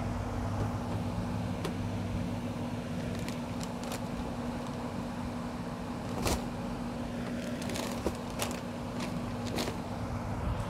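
Plastic detergent packets and cardboard crinkling and rustling in scattered clicks as a cat rummages in the box, with a cluster of crackles in the second half, over a steady low hum.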